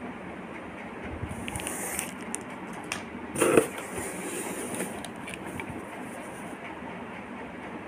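Small plastic-wrapped sample bottles handled in a cardboard box lined with crinkle paper: rustling and crackling of the packaging, with one louder knock about three and a half seconds in as an item is set down. A steady background rumble runs underneath.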